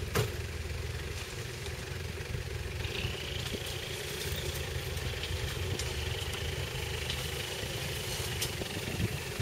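Toyota Land Cruiser 4x4's engine running steadily at low revs as the truck crawls slowly through a muddy rut. A faint high whine joins about three seconds in.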